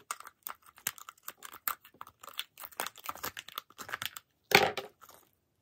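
Wet crackling and clicking as gloved fingers and a small plastic tool dig through the slimy, crunchy crystal fill of a Treasure X toy box, with one louder crunch near the end.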